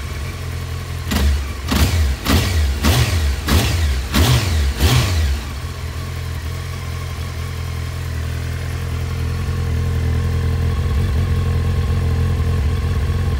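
1996 Honda CBR900RR Fireblade (SC33) inline-four engine idling, given about seven quick throttle blips starting about a second in, each revving up and dropping straight back, then settling to a steady idle that grows louder near the end.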